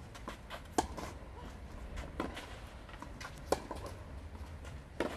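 Tennis rally: a racket strikes the ball four times, about a second and a half apart, as the two players trade shots, every other hit louder.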